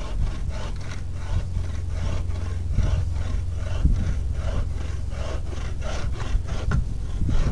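Homemade wooden-frame bucksaw cutting through a log by hand, in steady, even back-and-forth strokes. A steady low rumble runs underneath.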